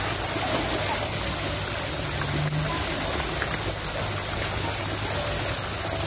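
Steady rush of water from an artificial waterfall pouring into a swimming pool.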